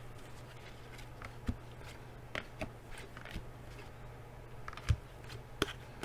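Trading cards being handled and set down: a scattering of light taps and clicks, about six, over a low steady hum.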